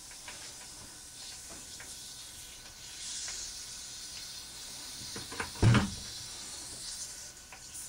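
Water draining from a freshly cut half-inch copper supply pipe into a plastic bucket, a steady trickle of the water still left in the line. One dull thump sounds about two-thirds of the way through.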